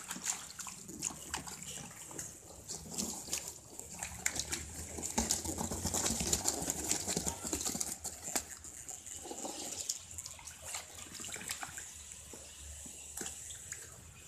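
Live spiny lobsters handled in a cardboard box, their shells and legs making many irregular clicks and scratches against the cardboard and each other, with some water splashing in a plastic tub.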